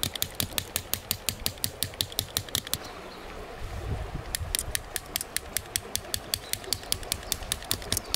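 Peg hammer tapping metal tent pegs into the ground in quick, even strikes, about five a second. The tapping stops about three seconds in and starts again on another peg a second and a half later.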